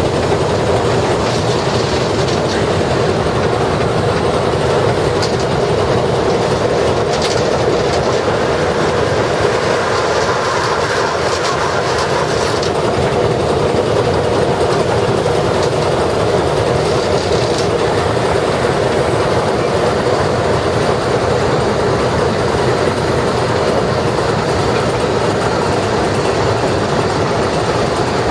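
Loud, steady running din in the cab of Swedish steam locomotive B3 No.130 under way, with the noise of the engine and of wheels on the rails filling the cab.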